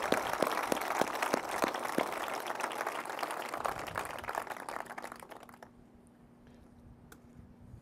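Large crowd applauding, the clapping thinning and dying away over about five seconds. A faint steady hum and a few scattered claps remain after that.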